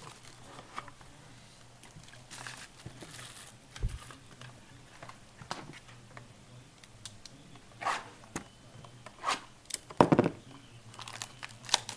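Hands working through the packaging of a sealed trading-card box: scattered rustling and clicking, with a low thump about four seconds in and a louder knock about ten seconds in.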